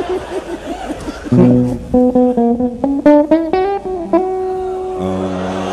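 Electric guitar played through an amplifier. A run of single picked notes climbs in pitch, one note is held, then a lower chord rings out near the end.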